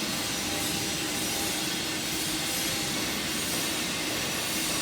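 Steady running noise of heavy industrial machinery: an even hiss with a faint steady hum beneath it.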